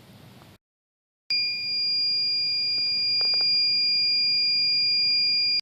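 A steady high-pitched electronic beep tone, held for about four seconds after a moment of dead silence, then cutting off abruptly.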